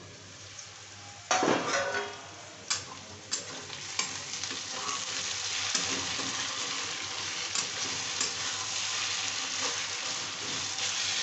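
Sliced onions sizzling in oil in a kadai, stirred with a spatula that scrapes and knocks against the pan. A ringing metal clang comes about a second in, and the sizzle grows louder and steadier after about four seconds.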